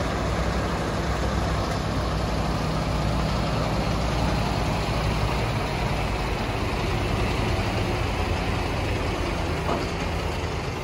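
Heavy MAN tractor unit's diesel engine running steadily at a low, even idle.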